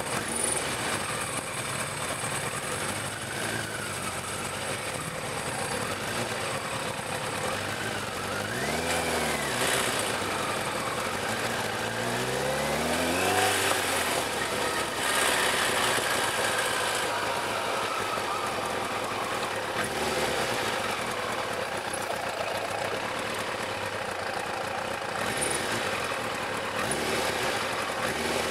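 Sport motorcycle engine heard from the bike itself at low riding speed over a steady rush of wind. Its revs rise and fall about eight seconds in, then climb again around twelve to fourteen seconds in.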